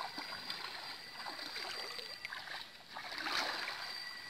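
Shallow pond water sloshing and splashing as two people wade through it, dragging a fine mosquito net, with a louder splash about three seconds in.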